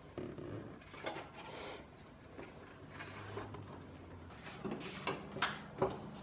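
Light knocks, clicks and rubbing of hand tools against car body parts while bolts are undone, with a few sharper clicks near the end.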